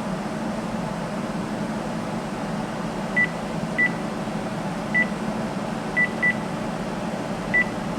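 Key-press beeps from a Panasonic cordless phone as its menu buttons are pressed: six short, high beeps at uneven intervals, two in quick succession about six seconds in, over a steady low hum.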